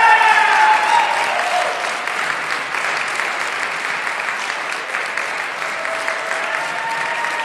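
Audience applauding steadily, with a few voices cheering in the first second or two and again faintly near the end.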